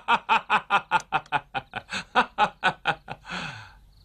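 A man laughing heartily: a long run of quick "ha-ha" bursts, about five a second, each dropping in pitch, trailing off into a breathy exhale after about three seconds.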